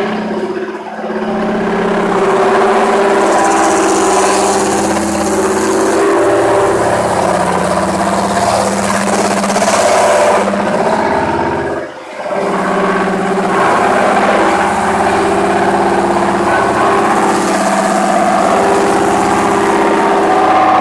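Four-head automatic stone calibrating machine running: its head motors hum steadily under a rough grinding noise as stone slabs pass beneath the abrasive heads. The sound dips briefly twice, and a higher hiss rises over it for a couple of seconds at a time.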